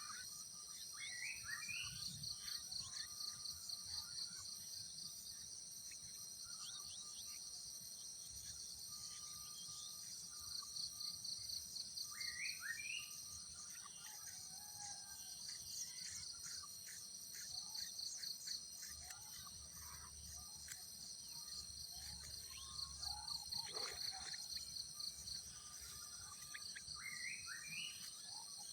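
Steady high insect buzzing, with a pulsing trill of about six beats a second that comes in bursts of a couple of seconds every few seconds. Short bird chirps and rising whistled notes are scattered through it.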